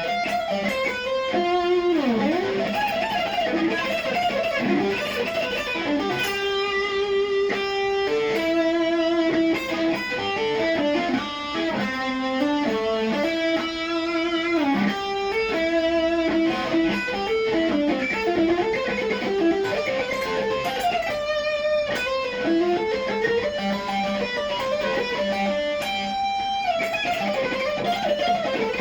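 Cort X700 Duality II electric guitar played straight into an amplifier with no effects pedal. It plays a melodic lead line of quick note runs broken by held notes.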